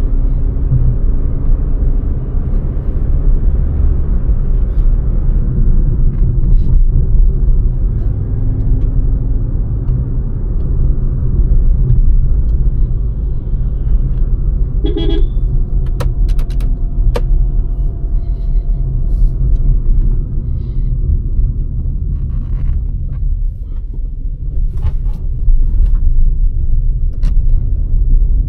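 Road and engine noise of a Maruti Suzuki Fronx being driven, heard as a steady low rumble from inside the cabin. A car horn sounds briefly about halfway through, and a few sharp ticks come in the second half.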